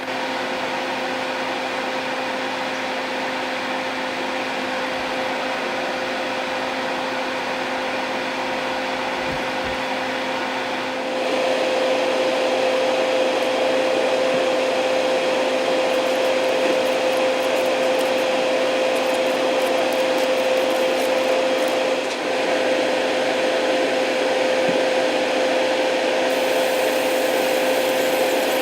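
A small electric blower running steadily at an electronics soldering bench, a whirring hiss over a constant hum, getting louder about eleven seconds in.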